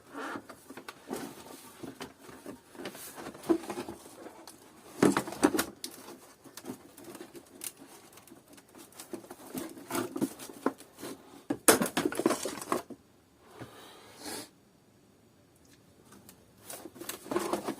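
Hard plastic housing of a Kärcher DS5500 vacuum cleaner being handled and worked at by hand: irregular clicks, knocks and scrapes, with louder knocks about five seconds in and again around twelve seconds.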